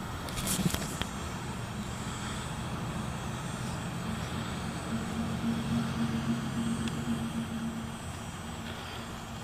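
A distant engine droning steadily, growing louder around the middle and easing off near the end, with a few light clicks about half a second in.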